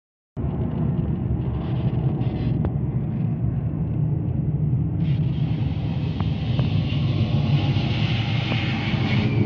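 Jet airliner cabin noise on the ground: a steady engine rumble heard from inside the cabin, cutting in just after the start, with a hiss that grows louder about five seconds in.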